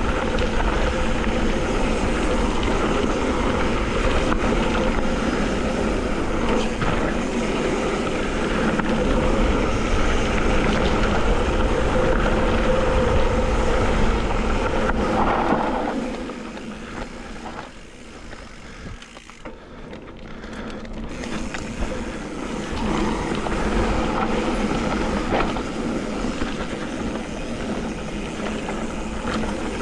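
Wind rushing over a helmet-mounted action camera's microphone, mixed with the rumble of mountain bike tyres on a dirt trail. It drops away sharply a little past halfway, stays low for a few seconds, then builds back up.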